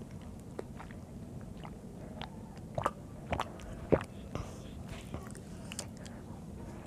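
Eating sounds: a child biting and chewing soft steamed rice cake, with small mouth clicks and smacks. A few sharper knocks come in the middle, the loudest about four seconds in as a mug is set down on the table.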